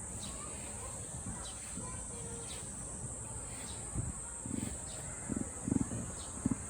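Emu giving a run of short, low, burp-like grunts, about six of them at roughly half-second intervals, starting about four seconds in. A steady high insect buzz runs underneath.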